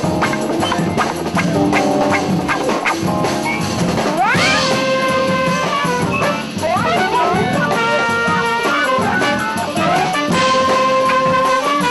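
Jazz band playing, with horns over a rhythm section. About four seconds in, a horn slides steeply up into a long held note, followed by more slides and held horn notes.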